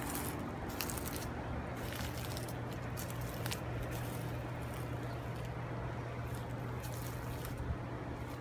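Scattered light rustles and clicks of footsteps on wood-chip mulch over a steady low hum.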